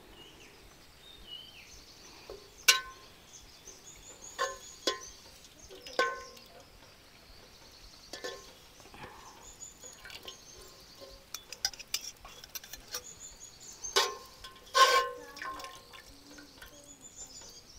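Boiled leaves being drained through a colander: water pouring and dripping off, broken by sharp, briefly ringing clinks of metal utensils knocking together. The loudest clinks come a few seconds in and near the end.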